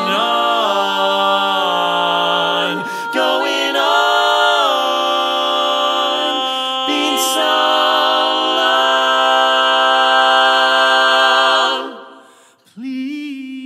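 Four-part barbershop a cappella singing: the voices move together through several chords on held vowels, then hold one long chord that cuts off about twelve seconds in. Near the end a single voice comes in on a held note with vibrato.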